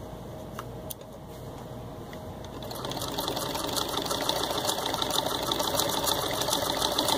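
Singer 127 vibrating-shuttle sewing machine turned by a hand crank, stitching through six layers of denim. After a couple of faint clicks it starts running about two and a half seconds in, building to a steady, rapid run of stitches.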